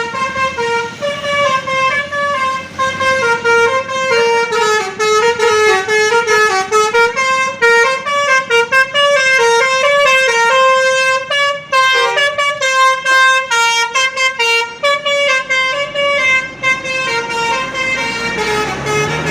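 Bus's Basuri telolet multi-tone horn playing a long, loud tune of quick notes that step up and down in pitch.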